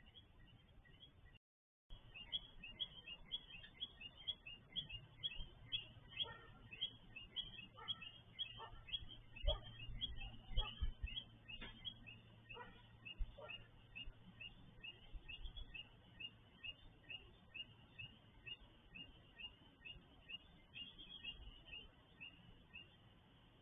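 Coquí frogs calling in a night chorus: many short, high chirps, a few each second, over a low steady hum. The sound drops out briefly about a second and a half in.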